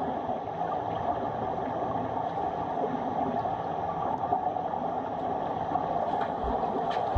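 Steady underwater ambience of a swimming pool, heard through a camera lying on the pool floor: an even hiss, with a couple of faint clicks near the end.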